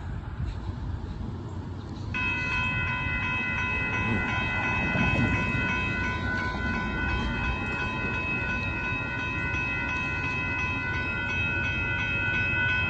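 Approaching Amtrak Texas Eagle passenger train running with a low rumble. About two seconds in, the locomotive's multi-note air horn comes on suddenly and holds as one long steady chord.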